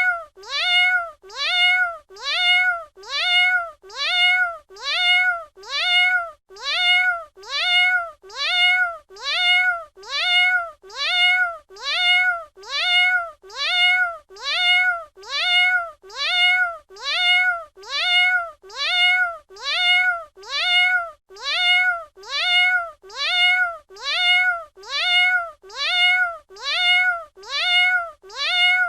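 Domestic cat meowing, the same short meow repeated over and over at an even pace, about one a second. Each meow rises in pitch at the start and then holds.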